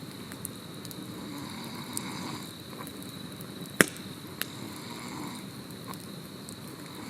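Wood fire crackling, with scattered sharp pops, the loudest about four seconds in, over a low steady rush of flame. A steady high insect trill runs behind it.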